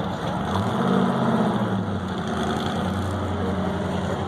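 An engine idling, with a short rise in revs about half a second in before it settles back to a steady idle.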